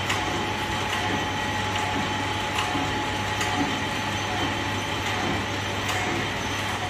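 Pillow-wrap (flow-wrap) packing machine running: a steady mechanical hum with a few faint, irregular clicks.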